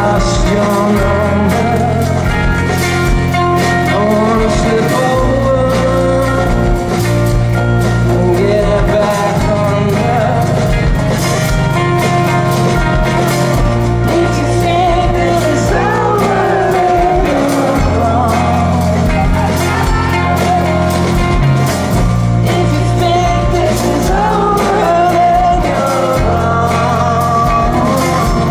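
Live rock band performance: a male lead vocal sung over electric guitar, a bass line of long held notes that change every few seconds, and drums with steady cymbal ticks.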